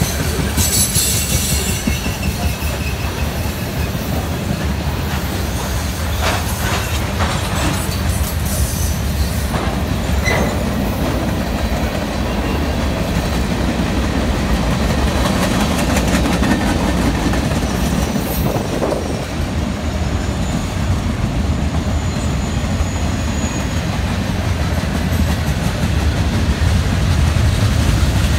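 Freight train cars rolling past at close range: a steady low rumble of steel wheels on rail with clickety-clack, and now and then a high-pitched wheel squeal, mostly in the first half.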